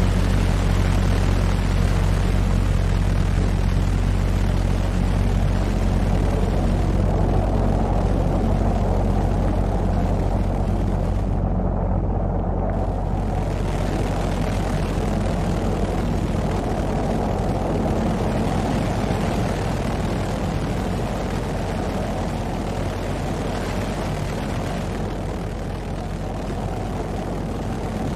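V2 rocket sound effect: a continuous deep, rumbling roar of rocket-engine thrust that slowly fades. The high hiss drops out briefly about twelve seconds in.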